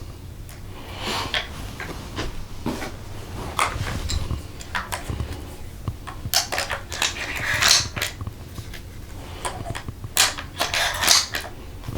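Beretta A300 Ultima 12-gauge semi-automatic shotgun being worked by hand: a string of sharp metallic clicks and clacks from the action and shells, the loudest ones in the second half.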